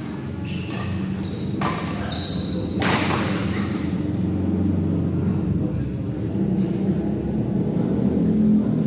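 Badminton rally on an indoor court: several sharp knocks of rackets striking the shuttlecock and shoes on the court floor, one with a brief high shoe squeak about two seconds in, over a steady low rumble in the hall.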